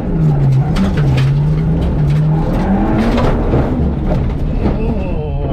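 Citroen C2 rally car's engine heard from inside the cabin, its revs dropping and picking up unevenly as the car slides off the road into sand, with grit and stones clattering against the car. The engine note dies away near the end.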